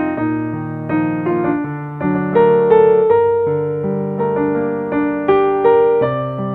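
Soft electric piano playing slow, gentle chords and melody notes, each struck and left to fade.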